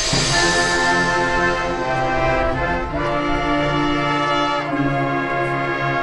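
Marching band brass section playing loud, sustained full chords. They come in with a bright crash at the start and change chord about three seconds in and again near five seconds.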